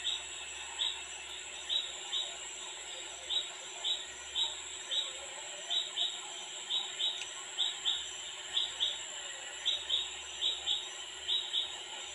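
Short high chirps repeating irregularly, about once or twice a second and often in pairs, over a faint steady hum.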